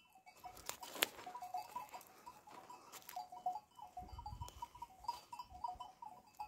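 Faint sounds of a flock of sheep grazing: scattered soft clicks and a string of short high notes repeating irregularly from about a second in.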